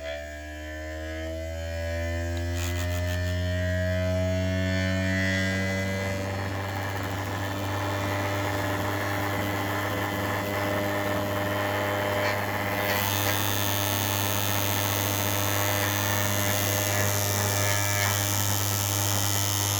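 3D-printed magnetic rotor on a Hall-sensor pulse motor spinning up: its hum climbs in pitch over the first several seconds and then holds steady at speed. Its dry-lubed shaft makes it hum rather than whine. A higher hiss joins about two-thirds of the way through.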